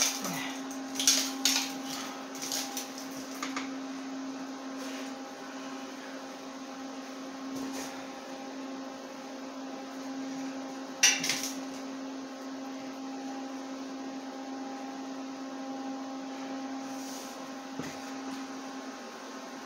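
Steady electrical hum, with scattered light knocks of steel parts being handled on a homemade sheet metal brake and one sharp, ringing metal clank about eleven seconds in.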